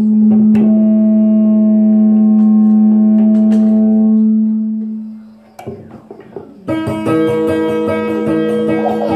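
Amplified acoustic-electric guitar: one low note held steady for about five seconds, then fading out. A few clicks follow, and a second ringing tone with a bright edge starts about seven seconds in.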